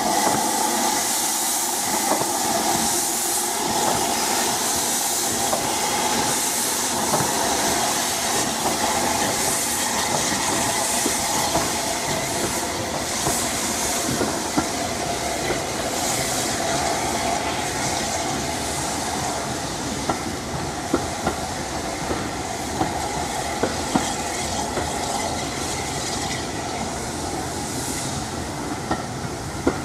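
Southern Railway S15 steam locomotive No. 847 pulling away with a train of coaches, with a steady hiss and rush of steam. Past the middle, sharp clicks of coach wheels passing over rail joints stand out.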